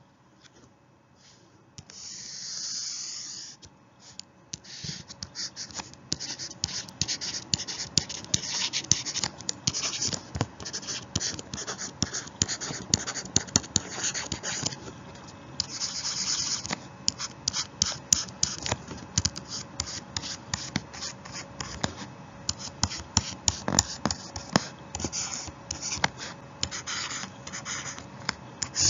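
Pen writing and scratching on paper close to the microphone: a dense run of quick scratches and taps, with a longer rubbing swish about two seconds in and another about halfway.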